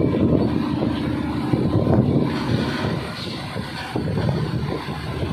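Diesel engine of a Plasser & Theurer track-maintenance machine running steadily as it moves slowly along the track during shunting, a little louder in the first half.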